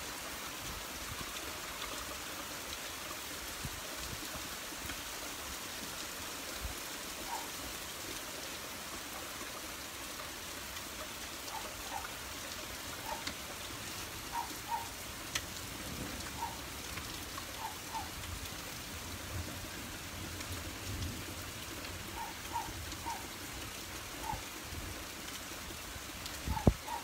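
Steady rain falling on wet pavement and puddles. Short faint chirps, often in pairs, recur every second or two from about seven seconds in, and a sudden thump comes near the end.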